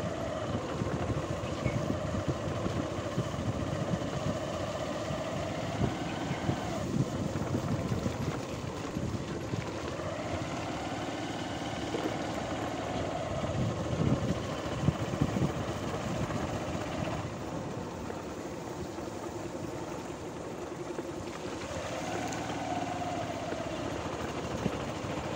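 An engine running, its pitch rising and falling slowly several times, over a steady rumble of wind on the microphone.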